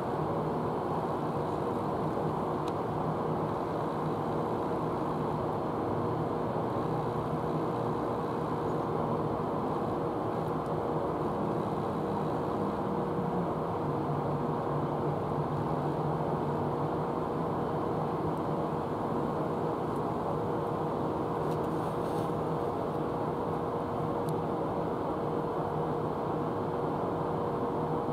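Steady machinery drone with a constant hum running through it; its lower part grows a little stronger about halfway through.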